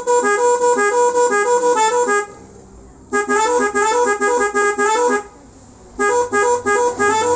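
Telolet multi-tone electric horn playing a jingle, a melody of short honked notes in three phrases of about two seconds each, with pauses of about a second between them.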